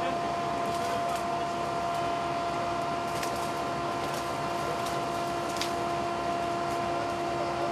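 A steady mechanical hum with a constant pitched whine, and a few faint clicks.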